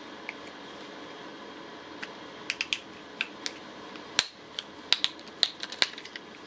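Irregular sharp clicks and taps of the impact wrench's hard plastic housing and bearing being handled during disassembly. They start about two seconds in and come more often toward the end, over a steady faint hum.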